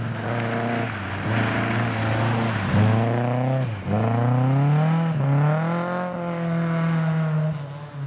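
Historic Lancia Fulvia coupé rally car's V4 engine revving hard through a snowy bend. The revs drop sharply twice about three and four seconds in, then climb again and hold as the car pulls away, fading near the end.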